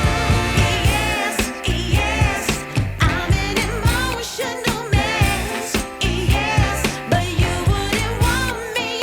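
Background pop music with a steady beat and a singer's voice.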